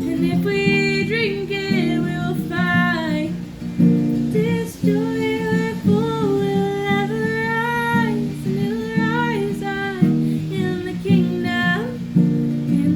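A song played on acoustic guitar, strummed, with a voice singing the melody in held, gliding phrases.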